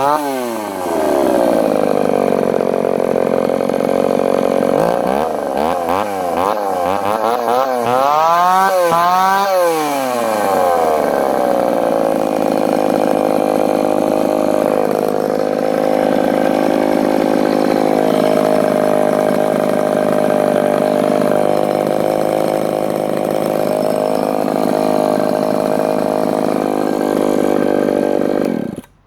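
Echo CS-302 30cc two-stroke chainsaw just after a restart. It runs fast at first and drops quickly to idle, is revved up and down in several quick blips, then idles steadily until the engine cuts off abruptly near the end.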